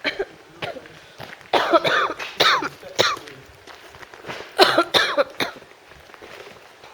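A woman coughing repeatedly, in several short bouts with the heaviest two near the middle, a cough left over from the end of a cold.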